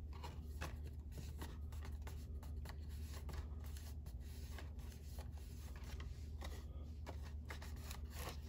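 Cardstock rustling and scraping in irregular short strokes as fingers press a glued paper piece into place around the inside of a paper box, over a steady low hum.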